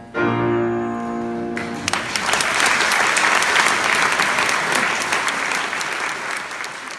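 The closing chord of the piano accompaniment rings for about a second and a half. The audience then breaks into applause, which carries on and begins to fade near the end.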